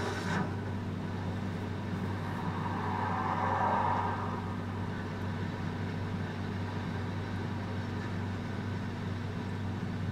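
A steady low hum under a faint hiss, with a soft swell about three seconds in that fades again.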